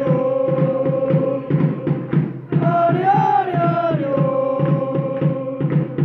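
Football supporters chanting a song in unison, with a drum beating steadily underneath. The chant comes in two long phrases, each rising and then held on a long note.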